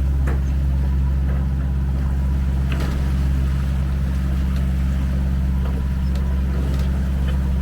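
A yacht's engine running steadily at constant speed: an even, unchanging low hum, with a few faint clicks.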